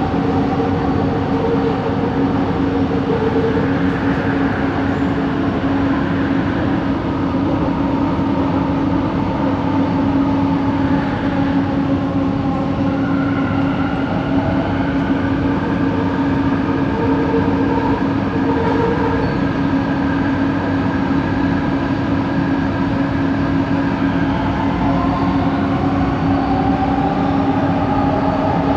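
Train set 70 running between stations, heard from inside the car: a steady rumble with a constant hum, and motor whines that slowly glide up and down in pitch. The set has an odd motor noise that the uploader traced to coach 4.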